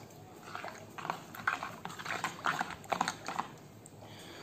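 A metal spoon stirring a watery mix of mango pulp and chopped onion in a plastic bowl, with irregular light clicks and taps of the spoon against the bowl, several a second.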